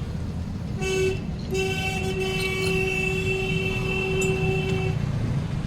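A vehicle horn outside gives a short toot about a second in, then a long steady honk of about three and a half seconds, over a constant low rumble of street traffic.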